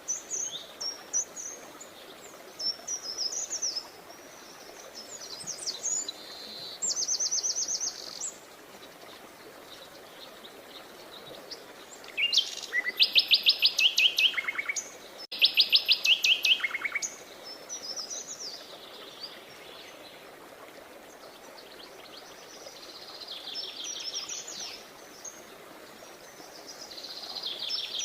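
Songbirds singing in short chirping phrases and fast trills, with the loudest, two rapid trills, around the middle.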